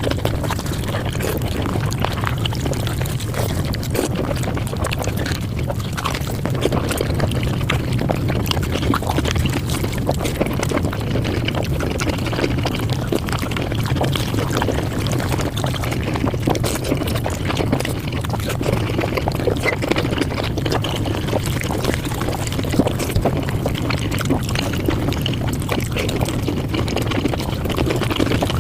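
Mukbang eating sounds sped up five times: chewing, crunching and slurping run together into a dense, continuous crackle of rapid little clicks.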